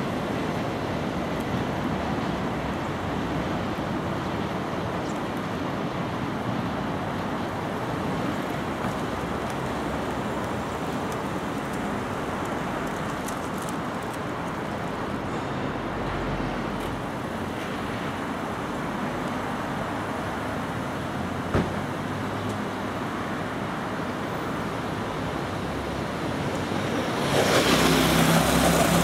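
Steady rumble of trains and yard noise as a freight train's container wagons roll away, with a single sharp click a little past two-thirds of the way in. Near the end an electric local train draws in and the sound grows louder, with a low hum.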